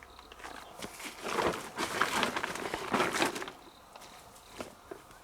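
Rustling, scraping handling noises in three short bursts about a second apart, then a few faint clicks, as a fish trap is rebaited.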